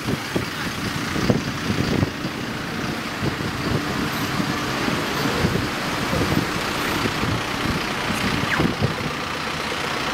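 Street traffic with a city bus's engine running close by and cars passing.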